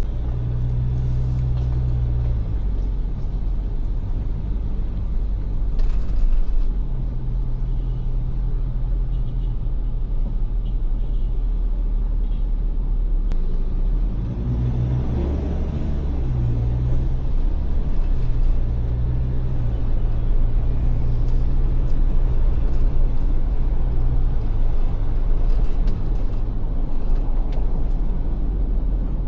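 Steady low drone of a Ford Everest SUV driving, heard from inside the cabin: engine and tyre noise, with low tones that fade and return as the engine load changes.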